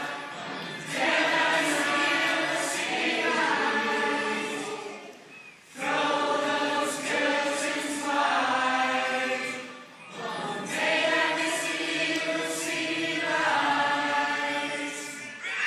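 A group of adult voices, mostly women, singing together in long held phrases, with short breaths between phrases about five and a half and ten seconds in.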